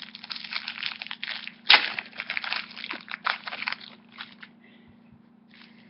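Crinkling and crackling of a foil trading-card booster pack wrapper being torn open, with a sharp loud crackle about two seconds in. The crackling dies down to a few faint clicks after about four seconds.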